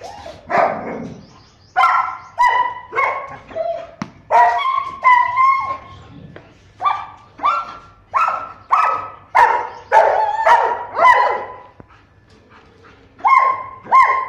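German Shepherd dogs barking: many sharp barks in quick succession, with brief lulls about halfway through and again near the end.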